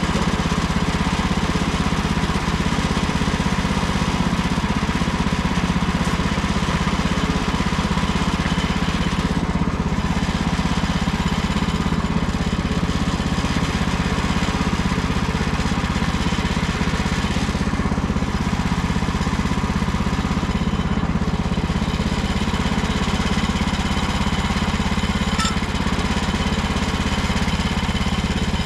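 Gasoline engine of a Woodland Mills HM130 Max portable bandsaw mill running steadily.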